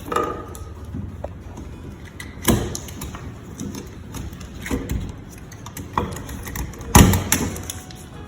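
A few irregular sharp knocks and clatters, as of objects being handled and set down, the loudest about seven seconds in.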